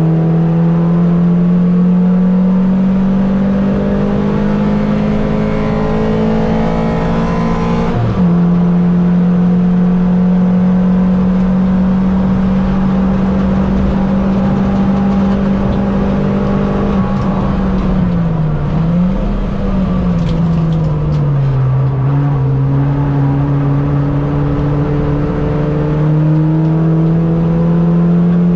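Mini race car engine running hard at high revs, its note climbing slowly with a sharp break about eight seconds in. Past the middle the revs dip, then drop and hold lower for a few seconds before climbing again near the end.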